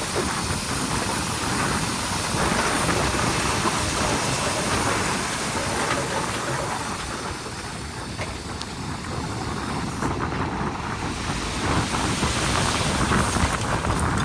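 Heavy earthmoving machinery running: a steady, dense engine and mechanical noise with continuous rattling and clanking. It dips a little in the middle and grows louder again near the end.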